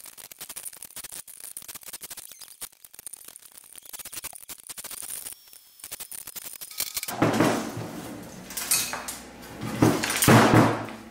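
Light clicks and rattles of small parts and screws being worked loose on a copier's sheet-metal chassis, then, from about seven seconds in, louder scraping and clattering as the bare sheet-metal frame is shifted and tipped up on the workbench, loudest near the end.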